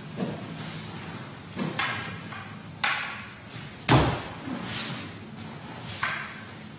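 Wooden practice swords (bokken) striking each other in a paired kata: about five sharp clacks a second or so apart, the loudest about four seconds in.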